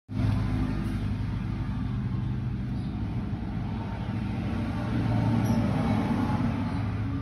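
A motor running steadily, a low even hum.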